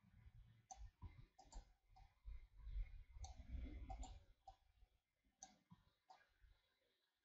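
Faint computer mouse clicks and a keyboard shortcut press: a dozen or so short, sharp clicks at an uneven pace, growing sparse near the end.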